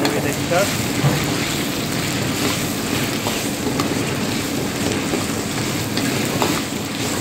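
Lamb pieces and ginger-garlic paste sizzling in hot oil in an iron wok, stirred with a metal spatula that scrapes and clicks against the pan.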